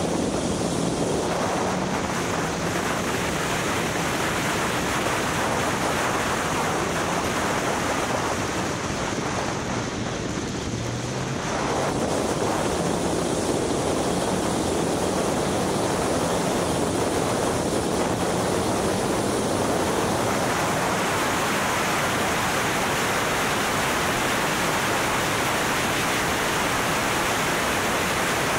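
Wind rushing over the microphone of an open R300 track car at speed, with its engine faintly underneath. The rush eases briefly about ten seconds in, then picks up again.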